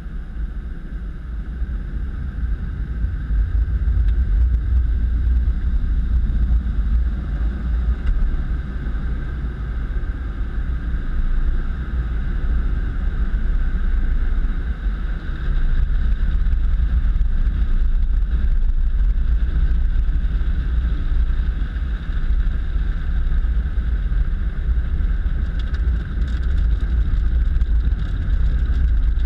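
Automatic car wash heard from inside the car: water spray hitting the windshield and body over a low, steady rumble of the wash machinery, building up over the first few seconds and then holding.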